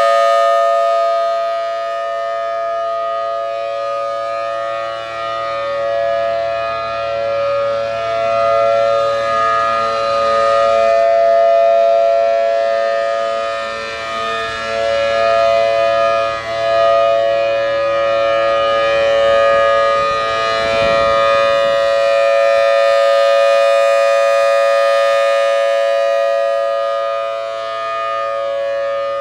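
Federal Signal Thunderbolt 1000T supercharged outdoor warning siren sounding a steady full-alert tone with its classic rasp. It holds one steady chord that swells and fades in loudness as the rotating head sweeps past.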